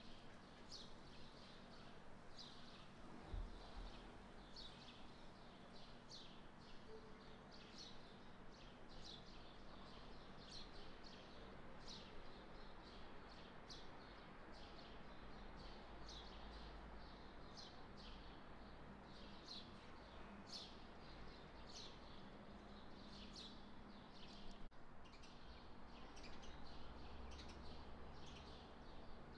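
Faint bird chirping in the background: short high chirps about once a second, over a low steady hum.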